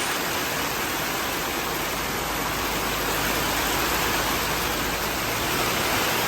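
Heavy rain pouring down, a steady hiss of rain.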